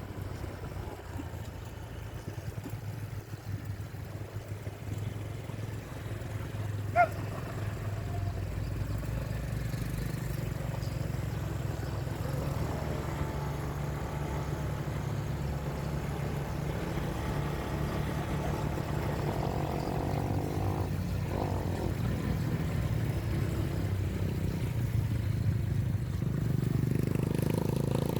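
Road vehicle engine running steadily and slowly getting louder, with one short horn beep about seven seconds in.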